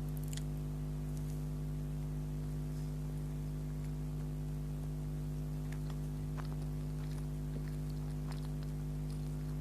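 Soft, quiet chewing of a strawberry-flavoured donut, heard as a few faint scattered mouth clicks, over a steady low electrical hum that is the loudest sound.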